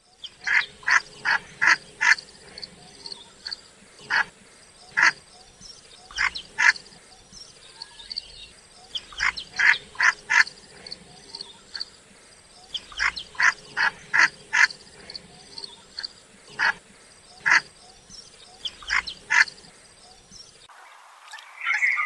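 Australian pochard (hardhead) calling: short, sharp notes in quick runs of several, about three a second, with pauses of a second or more between runs.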